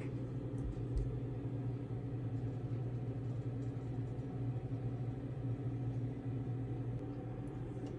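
A machine's steady low hum with an even pitch throughout.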